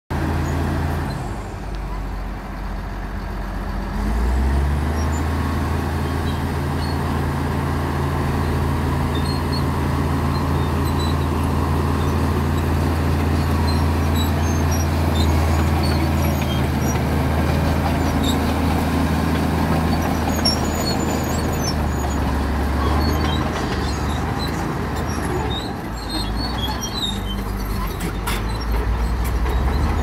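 LiuGong crawler bulldozer's diesel engine running steadily under load as the blade pushes rock and soil. The engine note rises and gets louder about four seconds in, then eases off and shifts a few seconds before the end.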